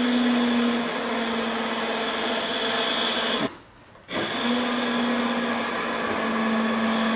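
A small electric motor whirring at a steady pitch. It winds down and stops about three and a half seconds in, then starts again half a second later and runs steadily.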